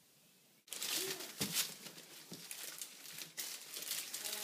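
Plastic packaging crinkling and rustling in irregular bursts as a toddler's hands rummage in a plastic-wrapped pack of paper towels. It starts suddenly under a second in, after faint room tone.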